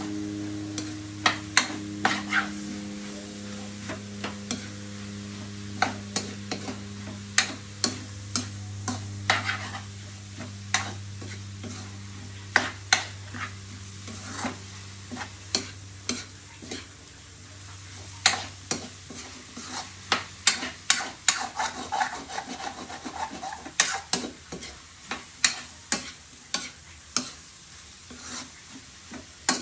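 Wooden spatula stir-frying sliced bitter melon in a metal wok, its strokes scraping and clicking against the pan at an irregular pace over a light sizzle of frying.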